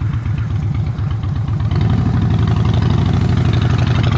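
A vehicle engine running steadily with a rapid low beat, growing a little louder about two seconds in.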